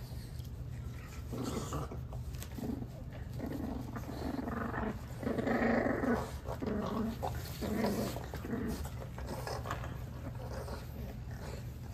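French bulldog puppies growling while play-fighting, a string of short growls that grows loudest about halfway through and then tapers off.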